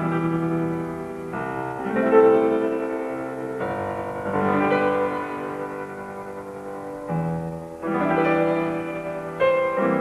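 Grand piano playing a slow solo introduction, sustained chords with a new one struck every one to two seconds.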